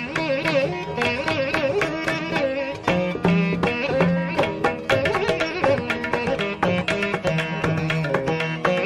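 Background instrumental music in an Indian classical style: a plucked string melody of quick notes whose pitch bends and slides.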